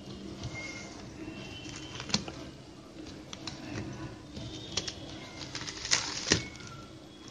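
Stiff plastic craft wire rubbing and clicking against the plastic weave as it is pulled through a tape basket, with a few sharp clicks, the loudest about six seconds in.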